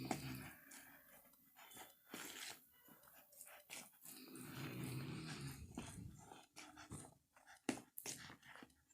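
Soft scrapes and taps of a spoon mixing masala paste into cooked rice in a bowl. Around the middle there is a faint, low, drawn-out groan-like sound lasting about two seconds.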